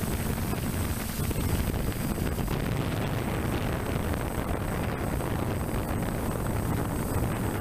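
Steady rush of propeller and motor noise from a DJI 550 multirotor drone, mixed with wind buffeting on the microphone it carries, with faint steady high whines above.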